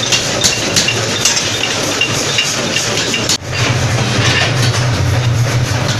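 Forge-shop machinery running, with a steady run of light metallic ticks about three a second. A little past halfway the sound cuts abruptly to a strong, steady low machine hum.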